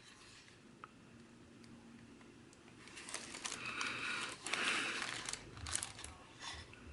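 Plastic packaging crinkling and rustling as it is handled, in irregular bursts with small clicks, starting about three seconds in after a faint start.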